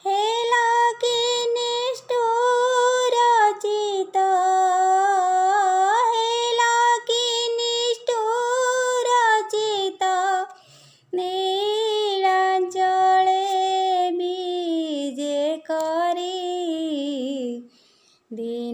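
A high woman's voice singing an Odia bhajan to Jagannath in long held, wavering notes, two long phrases with a short break about eleven seconds in.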